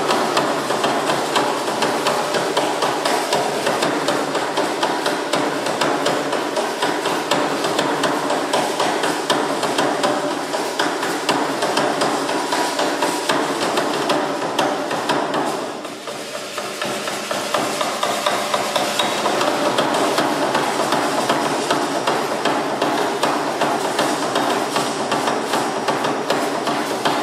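Dense, rhythmic rattling and clicking from Aztec dancers' percussion, the shaken ankle rattles worn for the dance, steady throughout and easing briefly a little past the middle.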